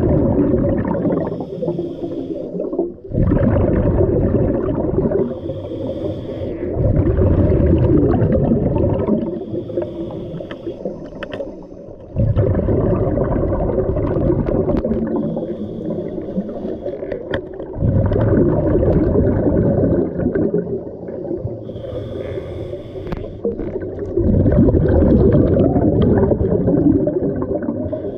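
Scuba diver breathing through a regulator underwater: a hissing inhale, then a longer, louder burble of exhaled bubbles, about five breaths in a row.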